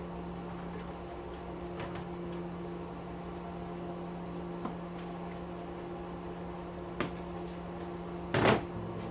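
A steady low hum, with a few light clicks and one louder clatter about eight and a half seconds in as small parts and tools are handled during the teardown.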